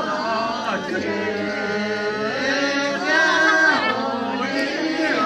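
Several people singing a welcoming song together, with long held notes.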